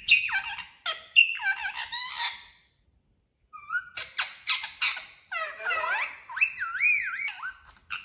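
Talking pet parrot calling: a run of high-pitched, squawky calls, a break of about a second, then more calls ending in a wavering, whistle-like note.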